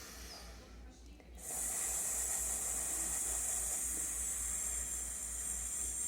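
A woman's quiet inhale, then about a second and a half in a long, steady, slow and controlled hiss through the mouth on the exhale: the yoga 'snake breath'.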